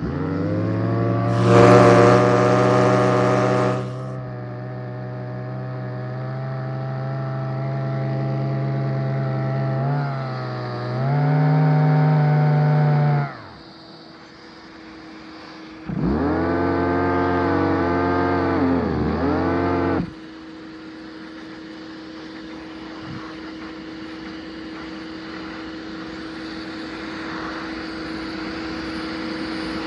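Homemade supercharged turbine running in spurts: a steady pitched hum that starts suddenly and surges with a hiss a couple of seconds in. Its pitch shifts near the middle and it cuts out, then it runs again for about four seconds with a wavering pitch and stops, leaving a faint steady whine.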